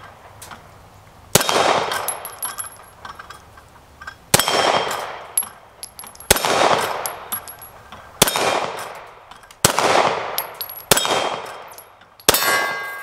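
Seven unhurried shots from a Lone Wolf Dusk 19 9mm pistol, each with a long echoing tail, and steel plate targets ringing with a high ping after the hits.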